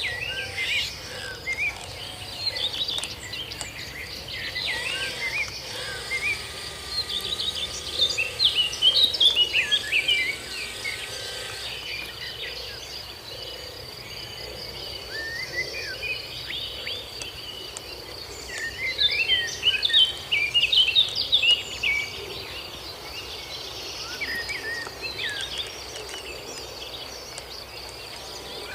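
Outdoor ambience: birds chirping in bursts over a steady high-pitched insect trill, the chirps busiest twice in the middle. No clear motor sound stands out.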